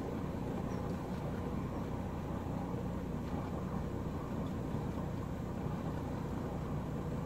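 A boat engine idling as a steady low rumble, under a faint even hiss.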